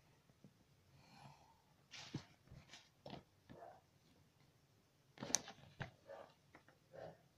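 Faint, scattered sounds of paper and tools being handled on a table: card paper rustling and a plastic ruler and scissors being moved and set down, with one sharp knock about five seconds in that is the loudest sound.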